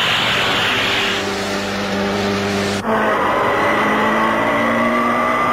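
Motorcycle engine sound effect running at speed as a steady drone. About three seconds in it cuts abruptly to a slightly higher-pitched drone.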